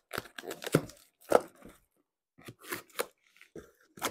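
A small cardboard parts box being torn open by hand, with irregular tearing, scraping and crinkling noises and a short pause about halfway through.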